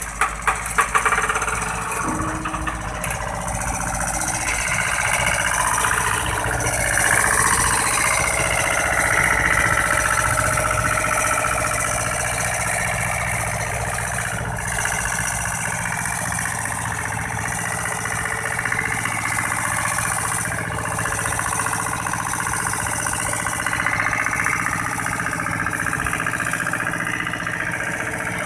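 Heavy diesel engine of the Scania P380 prime mover running steadily at low speed, hauling the loaded multi-axle trailer. There are a few sharp knocks in the first second.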